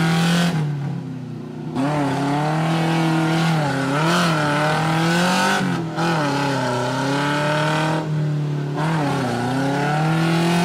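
A Suzuki Samurai's small four-cylinder engine revving hard under load as the truck climbs a steep muddy bank. The revs are held high and dip and rise several times.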